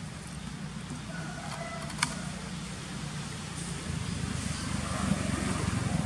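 Steady low outdoor rumble, growing a little louder toward the end, with one sharp click about two seconds in.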